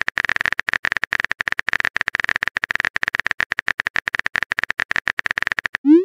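Texting-app typing sound effect: a rapid, even run of keyboard clicks, many per second. Just before the end it gives way to a short rising pop, the message-sent sound.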